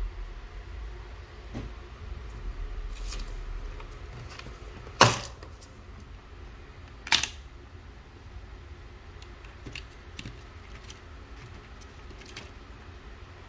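Scattered clicks and knocks of parts being handled in a small room, with two louder sharp knocks about five and seven seconds in, over a low steady hum.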